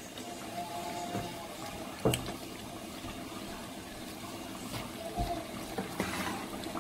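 Pot of beans boiling on a gas stove: steady bubbling, with a sharp knock about two seconds in.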